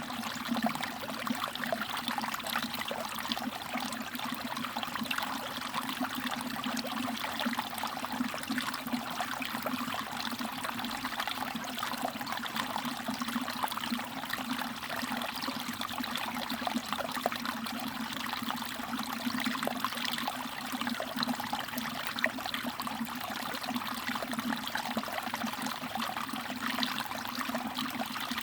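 Mountain stream water trickling and babbling steadily over rocks, with many small splashes and drips.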